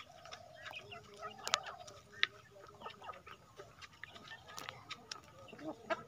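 Aseel chickens clucking in short calls, with a few sharp clicks, the loudest about a second and a half and two seconds in.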